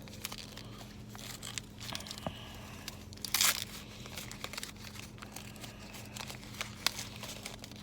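Candy bar wrapper crinkling and tearing as it is opened, with scattered crackles and one louder rip about three and a half seconds in.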